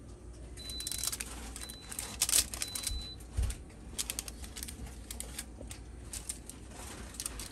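Aluminium foil lining a tray crinkling as the tray is handled: an irregular run of small crisp crackles. Three short, faint, high beeps come in the first few seconds.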